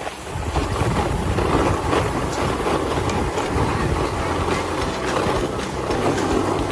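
Steady rumbling scrape of edges sliding over hard-packed snow on a groomed ski run, with wind on the microphone.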